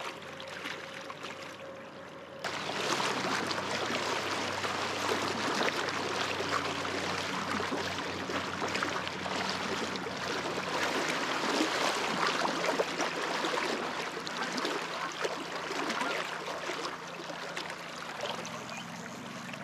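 Steady rush and babble of river current around a wading angler, which starts abruptly about two and a half seconds in after a quieter opening and eases slightly near the end.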